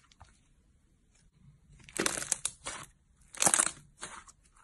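Brown slime squeezed and folded in the hand, giving two bursts of dense clicking and popping about two and three and a half seconds in, after a quiet start.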